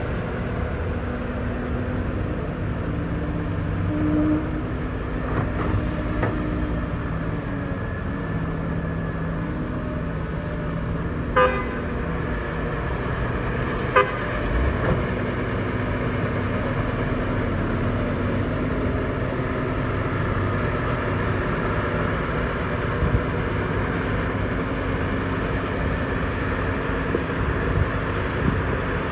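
Heavy diesel engines of earth-moving machinery, a dump truck and a bulldozer, running steadily under load. Two sharp knocks come a few seconds apart partway through.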